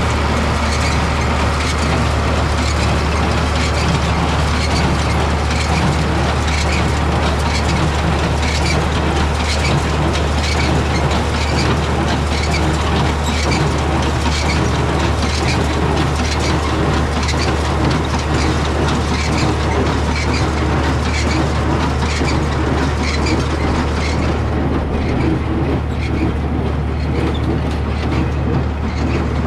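Tractor engine running steadily while a John Deere 336 wire-tie square baler works, its plunger clacking rhythmically about once a second.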